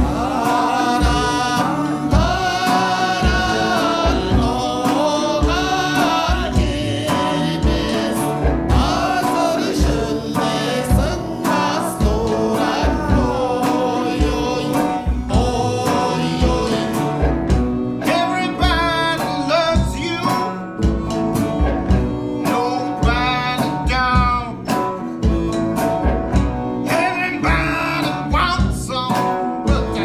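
A song playing: a singing voice over guitar and a steady drum beat.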